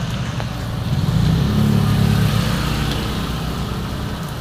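A motorcycle engine running close by, getting louder about a second in and then easing off, over a steady hiss of rain on a wet road.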